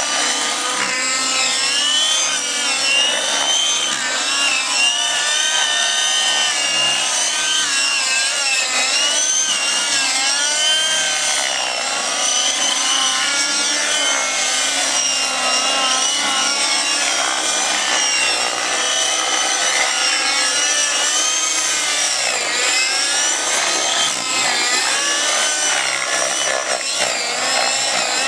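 Radio-controlled nitro model helicopters' engines and rotors whining, several pitches rising and falling continually as the helicopters throttle and swing through aerobatics.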